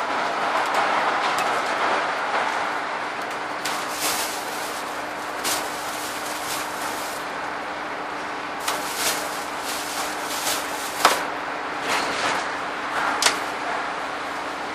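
Scania N230UD Enviro 400 double-decker bus on the move, heard from inside: steady engine and road noise with a constant low whine. Sharp rattles and clicks from the bus body come in over the second half.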